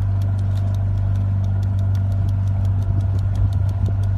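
Motorboat engine running steadily, a loud, unchanging low drone.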